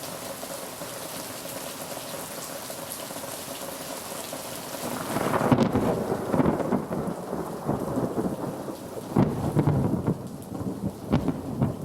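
Steady rain hiss in a summer thunderstorm. About five seconds in, a long, rough thunder rumble starts and goes on to the end.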